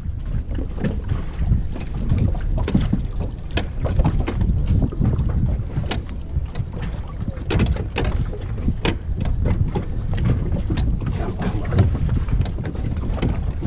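Wind buffeting the microphone and water slapping against a small inflatable dinghy, with many irregular sharp knocks and slaps; no engine is running.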